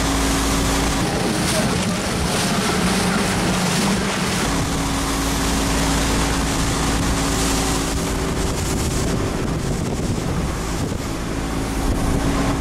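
Outboard-powered motorboat running at speed: a steady engine drone under the rushing of water off the hull, with wind buffeting the microphone. About a second in, the engine note wavers for a few seconds, then settles again.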